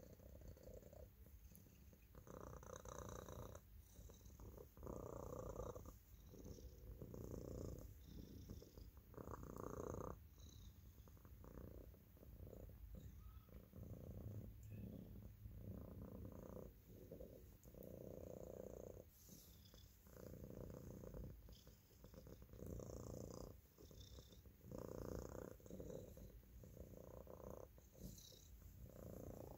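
A cat purring softly while being stroked, the purr swelling and easing with each breath about every two and a half seconds.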